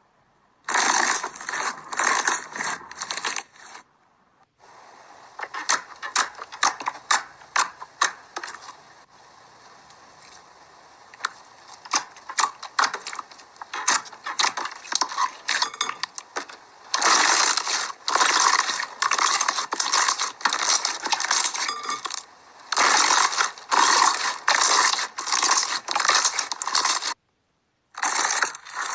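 Slime squeezed and poked by hand, giving dense crackling and clicking in repeated bursts of about half a second, with abrupt cuts between clips.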